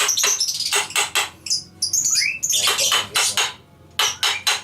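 Repeated sharp metal-on-metal hammer taps on a jet pump as it is knocked apart, several taps a second in runs with short pauses between. A short rising squeak about two seconds in.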